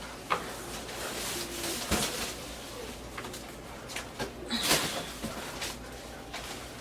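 Packaging being handled: faint rustling and a few light knocks, the most noticeable about two seconds in and again between four and five seconds.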